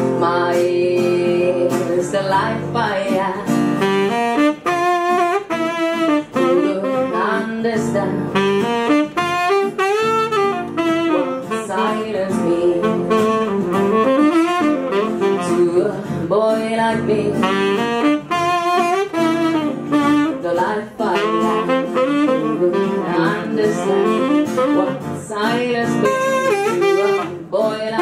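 Saxophone playing a flowing melodic line over sustained guitar accompaniment, in a live song.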